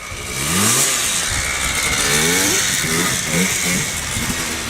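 Snowplow truck going by, its engine revving up in pitch several times as it accelerates through the gears, over a loud hiss of tyres and plowed snow.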